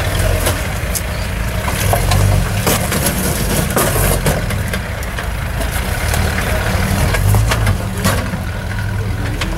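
Jeep Wrangler TJ Rubicon's 4.0-litre straight-six running at low crawling speed, with scattered sharp knocks and crunches as the Jeep works over the obstacles.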